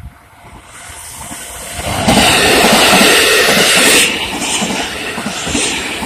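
285 series Sunrise Express electric sleeper train passing close through a level crossing: a rushing noise builds and peaks from about two to four seconds in, then gives way to a steady rhythmic clatter of wheels over rail joints.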